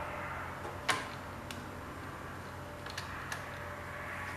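A few small metallic clicks as a battery cable clamp and its terminal bolt are handled and fitted onto a garden tractor battery post by hand. The sharpest click comes about a second in, with fainter ones later.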